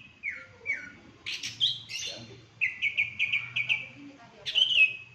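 Songbird singing a varied phrase of clear whistled notes: falling slurs, then a quick run of about six short notes, and a loud falling note near the end.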